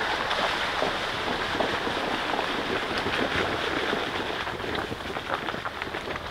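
Jeep tyres crunching over gravel and sloshing through muddy puddles on a dirt trail, a steady noisy rush with many small crackles, easing slightly near the end.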